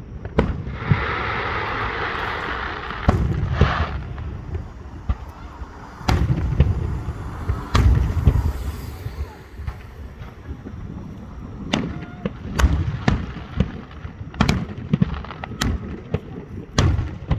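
Aerial fireworks exploding: a series of sharp booms at irregular intervals, each with a low rumble, and a few seconds of hissing near the start.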